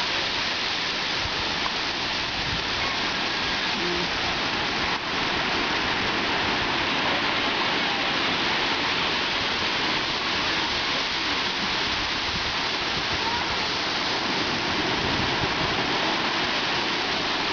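Ocean surf washing steadily over shallow water, an even rushing noise with no break.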